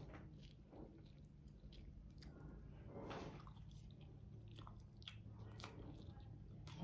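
A person chewing a bite of breaded fish stick: faint chewing and mouth sounds, with soft clicks, and a brief louder thud at the very end.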